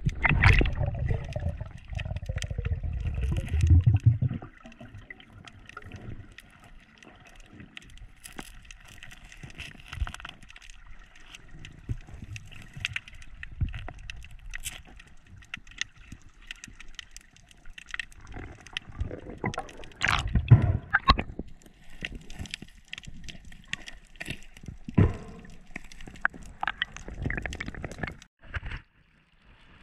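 Underwater water noise: a loud low rush of moving water and bubbles for the first four seconds, then a steady crackle of small clicks, with another short rush of water about twenty seconds in.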